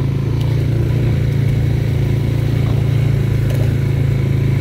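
Off-road vehicle engine running steadily while driving along a rough trail, with a couple of faint knocks or rattles.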